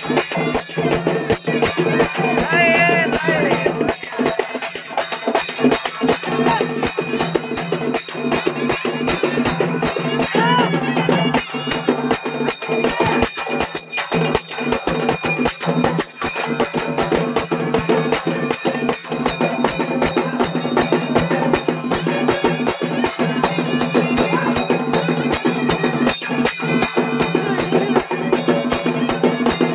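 Live traditional festival music: drums and other percussion beaten in a fast, steady rhythm over steady held tones.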